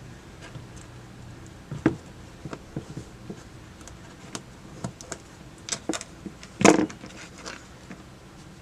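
Scattered small clicks and taps of hand tools working at a tiny fuse's outer shell, with a louder, longer knock about seven seconds in.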